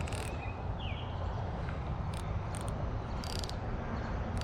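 Steady outdoor background hiss with a few short, high-pitched ticks and rustles scattered through it.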